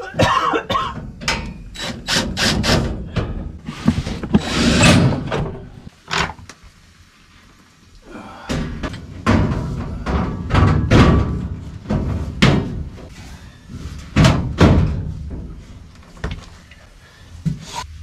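Sheet-metal furnace access panels being handled and fitted back into place: a run of knocks, thunks and rattles of thin metal, with a quieter pause in the middle.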